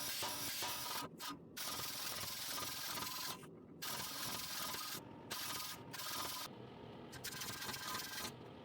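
Power grinder abrading stainless steel, a dense grinding hiss over a steady motor whine that breaks off briefly several times.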